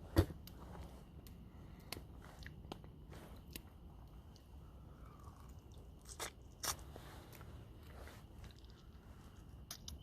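Someone eating close to the microphone: quiet chewing with scattered small clicks and crunches, the sharpest just after the start and two more a little past the middle.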